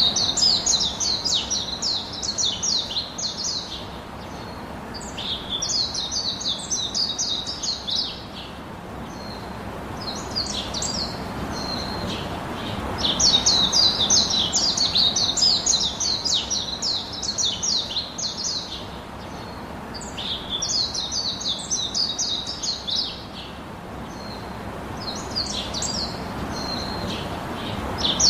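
Small birds chirping and twittering fast and high-pitched, in bouts of a few seconds with short pauses between, over a faint steady background hiss.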